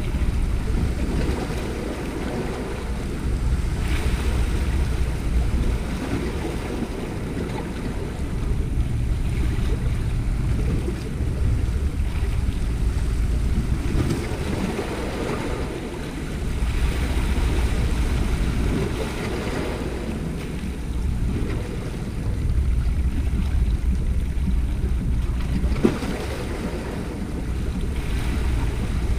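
Sea waves washing against shoreline rocks, with wind buffeting the microphone; the low rumbling noise swells and eases every few seconds.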